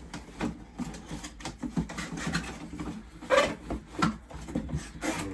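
Cardboard box and packaging being handled: a string of rubs, scrapes and light knocks, the loudest about three and a half seconds in.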